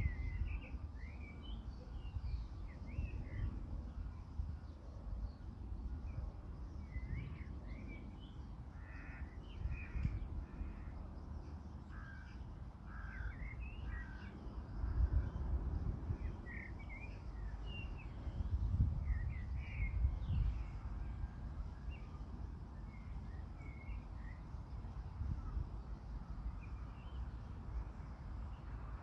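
A flock of birds calling outdoors, with many short, harsh calls scattered through the whole stretch, over a steady low rumble that swells briefly about halfway through.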